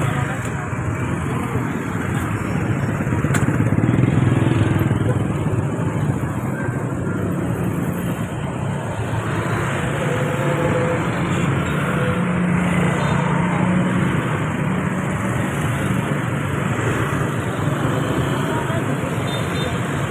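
Steady roadside traffic noise from engines of passing vehicles, loudest about four seconds in.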